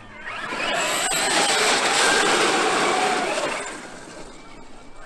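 Traxxas X-Maxx RC monster truck driving past, its brushless electric motor whining over the rush of its tyres, swelling for a couple of seconds and then fading away.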